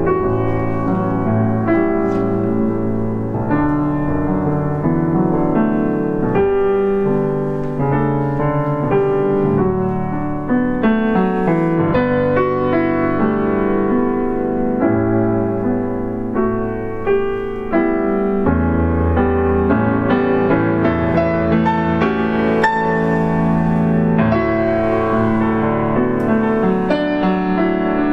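Grand piano played solo in a contemporary classical piece: a continuous flow of many notes ringing into one another, with more high notes in the later part.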